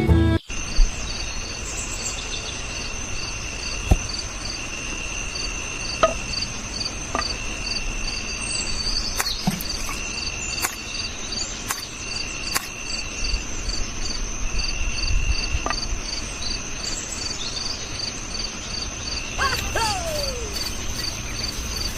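Insect chorus of crickets: a steady high trill with even chirps about two to three times a second, over a few scattered sharp clicks and knocks.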